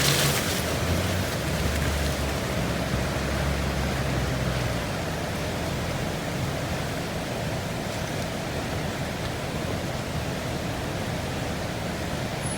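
Toyota Land Cruiser 80 Series engine pulling the vehicle up a steep climb, a low drone that fades after about five seconds under a steady wash of noise.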